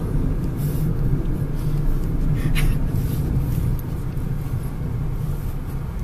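Car road and engine noise heard inside the cabin while driving: a steady low rumble, with a brief click about two and a half seconds in.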